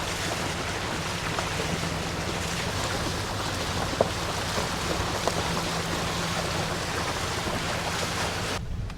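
Pickup truck carrying a heavy camper, driving on a rough dirt and gravel road: a steady low engine drone under a loud rushing of tyre and wind noise. Scattered small knocks and rattles come through, with one sharp knock about four seconds in. The rushing cuts off abruptly just before the end, leaving the engine drone.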